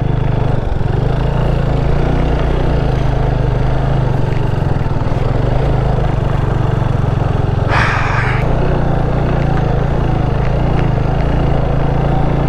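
Motorcycle engine running steadily under way, with wind and road noise. There is a short burst of hiss about eight seconds in.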